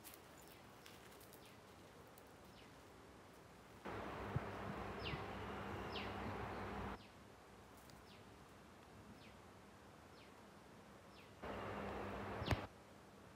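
A flying insect buzzing close by with a steady low hum: for about three seconds starting some four seconds in, and again briefly near the end. Short, high, falling chirps sound faintly now and then.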